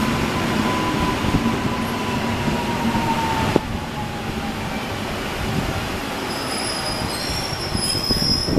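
EN57 electric multiple unit running past on the station track, wheels squealing. A whine falls slowly over the first three and a half seconds, there is one clunk at about three and a half seconds, and high squeals come near the end.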